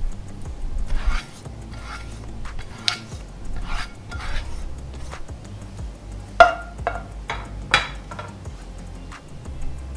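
Silicone spatula scraping stir-fried vegetables out of a stone-coated non-stick pan onto a plate: a string of short scrapes and soft knocks, the two sharpest a little past halfway, over soft background music.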